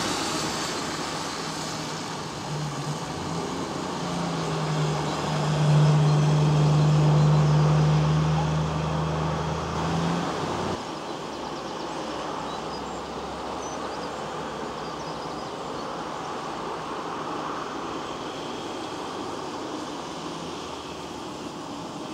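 Road traffic noise: a steady rush of passing vehicles. A steady low engine hum is the loudest part of the first half and cuts off abruptly about eleven seconds in. A lighter traffic rush continues after it.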